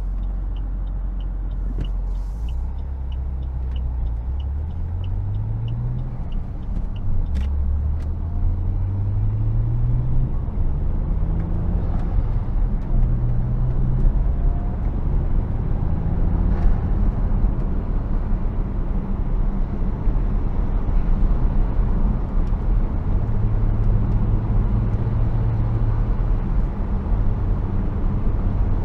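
Inside the cabin of a Saab 9-3 Turbo X, its turbocharged 2.8 V6 pulls up through the gears, its pitch rising and dropping back at each shift, then settles into steady cruising under road noise from studded winter tyres. A turn-signal indicator ticks about twice a second at the start and stops about seven seconds in.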